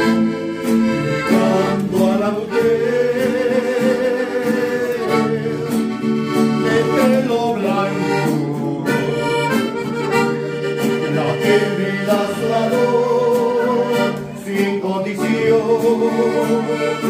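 Accordion-led band music, an instrumental passage with wavering held melody notes over a steady bass line, leading into the sung verse of a song.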